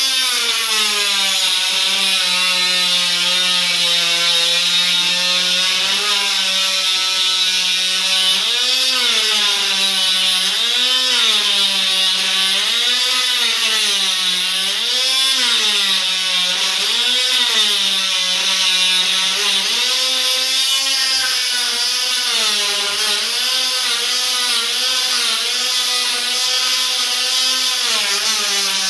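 Oscillating multi-tool running steadily as a scraper, lifting old vinyl flooring: a really loud buzzing drone. For a stretch in the middle its pitch swings up and down about every two seconds.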